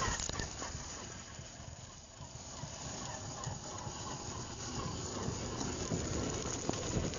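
RC crawler truck driving over dry leaves and dirt, with its tyres crunching and crackling on the leaf litter and a faint motor whine. It is quieter about two seconds in and louder as the truck comes close again near the end.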